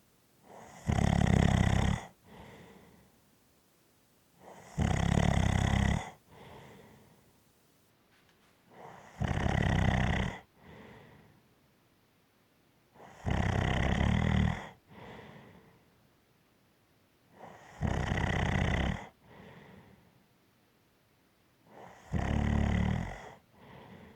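Snoring in a steady rhythm: six loud snores about four seconds apart, each lasting a little over a second and followed by a softer breath out.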